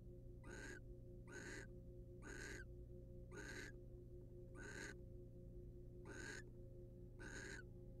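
Barn owl giving short rasping, hiss-like calls, about one a second, seven in all, over a steady low electrical hum.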